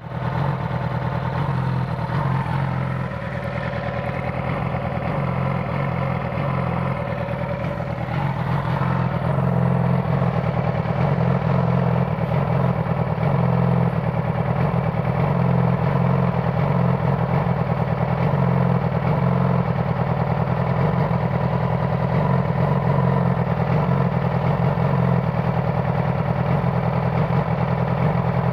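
2009 Yamaha R6's inline-four engine idling with a misfire, the sign of a bad ignition coil. It runs steadily and gets a little louder about nine seconds in.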